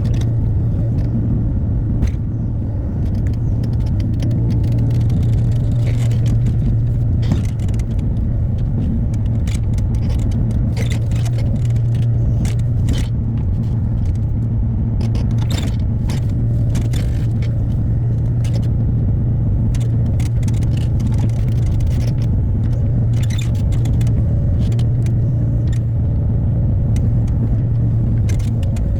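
Hyundai HX60A mini excavator's diesel engine running steadily, with scattered short knocks and scrapes of rock and metal as it works.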